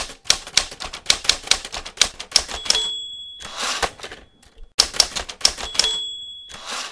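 Typewriter sound effect: a quick run of key clacks, about five a second, then a bell ding and a carriage-return zip. A second run of keystrokes follows with another ding.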